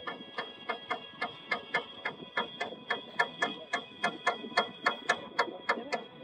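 Regular, sharp knocking, about four knocks a second, growing louder toward the end, over a faint steady high ringing.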